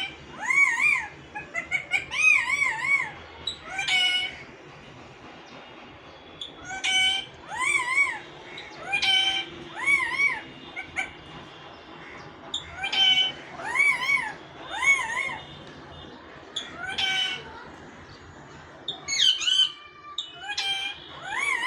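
A parrot calling: short, arched calls that rise and fall in pitch, coming in bunches of two or three, with brief pauses between the bunches.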